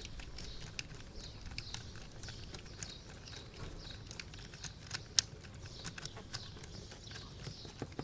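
Scattered light clicks and ticks of a small screw being driven back into an RC car's suspension mount, with one sharper tick about five seconds in, over a faint steady background hum.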